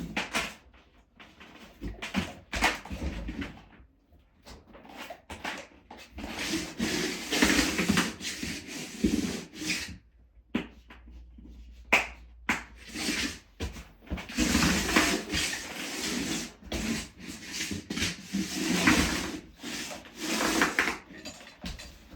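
Heating cable being pressed and worked into the studs of a Ditra-Heat plastic membrane by hand: irregular rubbing and scraping with short knocks, in uneven bursts separated by brief pauses.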